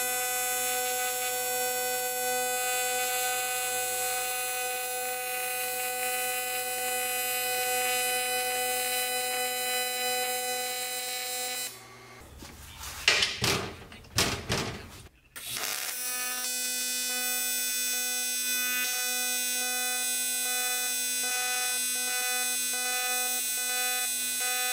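AC TIG welding arc on aluminium: a steady electric buzz made of several even tones. About 12 seconds in the arc stops and there are a few seconds of irregular knocks and handling sounds, then the arc strikes again about 16 seconds in and buzzes steadily on.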